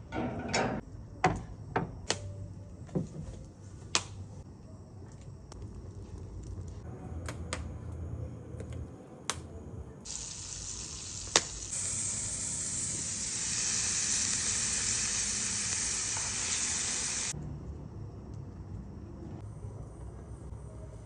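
Meat sizzling on a hot barbecue grill, with a few sharp clicks in the first seconds. A louder stretch of sizzling starts suddenly about ten seconds in and cuts off about seven seconds later.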